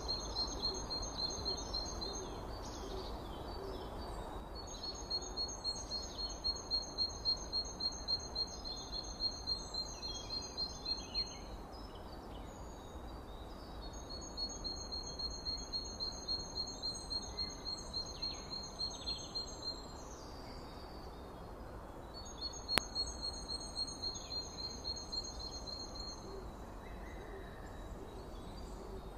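Nature ambience: four bouts of fast, high-pitched pulsing chirps, each lasting a few seconds, over steady background noise, with one sharp click about two-thirds of the way through.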